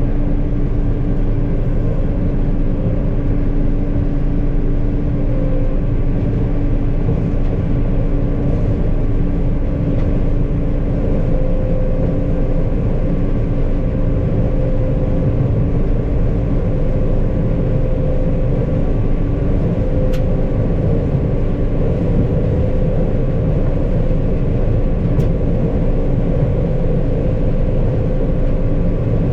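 Combine harvester running steadily while harvesting corn, a constant engine and threshing drone with a steady hum.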